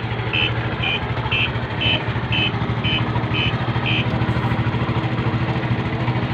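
Motorcycle engine idling steadily while its turn-signal buzzer beeps about twice a second, with the beeping stopping about four seconds in.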